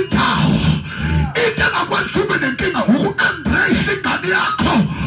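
A man's voice through a microphone and loudspeaker in loud, rapid, forceful bursts of fervent prayer, with sharp breaths and pitch swooping up and down several times a second.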